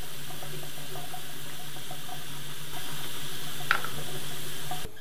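Tap water running steadily into a bathroom washbasin. It gets a little louder about halfway through and cuts off abruptly near the end.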